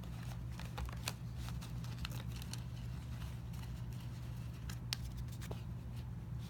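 Trading cards and their packs being handled: scattered light clicks and slides of card stock, over a steady low hum.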